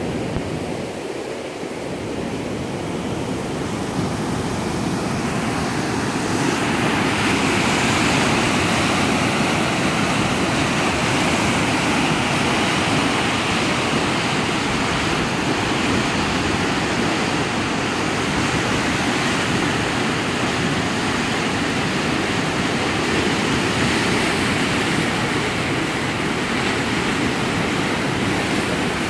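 A muddy river in flood after an hour of rain, its swollen, turbulent water rushing under a bridge. The rush grows louder over the first several seconds, then holds steady.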